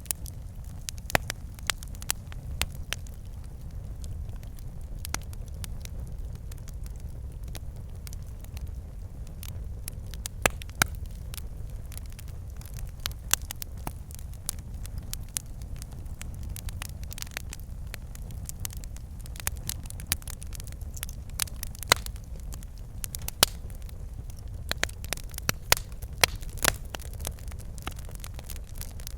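Log fire burning, with a steady low rumble and frequent irregular crackles and sharp pops from the logs.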